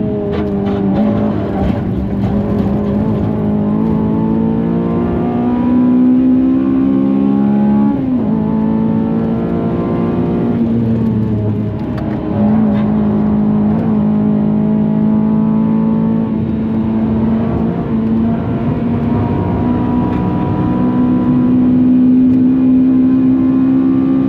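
Honda Civic FN2 Type R's K20 four-cylinder engine pulling hard at high revs, its pitch climbing slowly. The pitch breaks briefly about eight seconds in and again about twelve seconds in, as the throttle lifts or a gear changes, then it pulls on.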